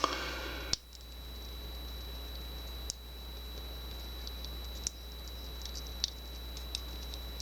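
A few light, sparse metal clicks and ticks as small padlock pins and picking tools are handled while driver pins are taken out of the lock core. There is a short rustle at the start.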